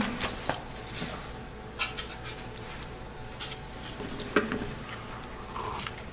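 Faint rustling and a few light knocks as paper notes are handled at a lectern, over quiet room tone.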